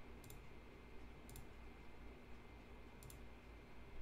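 Three faint computer mouse clicks, spread unevenly over a few seconds, over quiet room tone with a low steady hum.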